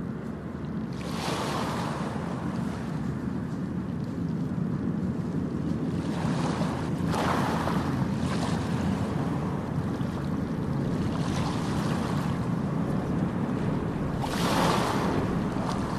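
Ocean surf ambience: a steady low rush of water with waves washing in every few seconds, the loudest one near the end.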